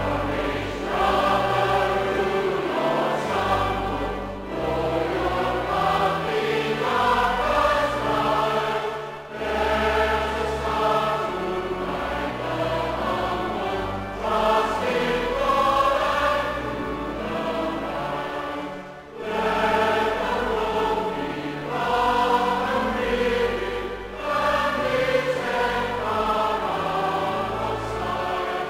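A church congregation singing a hymn together, with low organ notes sustained beneath the voices; the singing pauses briefly between lines every five seconds or so.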